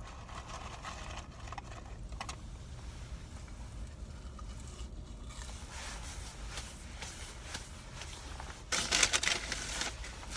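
Someone chewing crunchy fast-food fries with the mouth close to the microphone, then a loud burst of paper rustling and crinkling about nine seconds in, as a paper bag or napkins are handled. A low steady rumble runs underneath.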